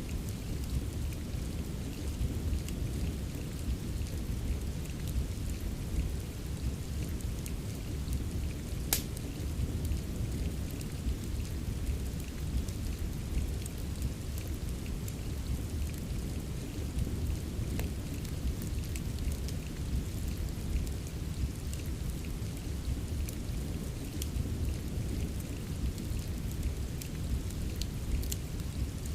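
Steady rain with a deep low rumble underneath, mixed with fireplace crackling: scattered sharp pops and snaps, one louder about nine seconds in.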